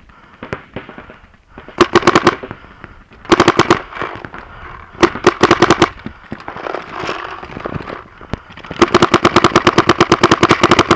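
Paintball marker fired from close by in rapid strings of about a dozen shots a second: three short bursts of about half a second, then a long string of about two seconds near the end. Fainter shots from other markers pop in between.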